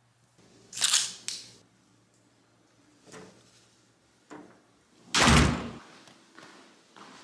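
A door swinging shut with a heavy thud about five seconds in, after a few sharper clicks and knocks of handling; a few faint taps follow.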